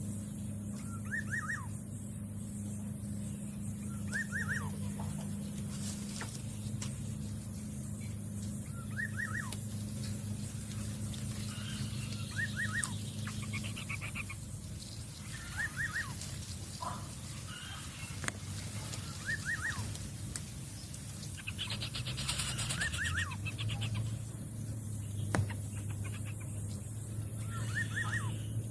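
A bird chirping in short quick bursts of three or four falling notes, repeated every few seconds, over a steady low hum.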